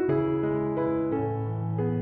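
Soft background piano music, gentle notes changing about every half second.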